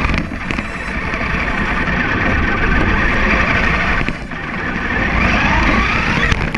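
Electric motor of a radio-controlled model running with a dense rushing noise, its whine rising near the end.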